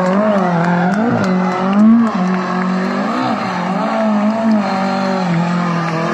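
A classic Lada saloon rally car's engine revving hard, its pitch rising and falling again and again, about once a second, as the driver works the throttle while drifting the car through a bend.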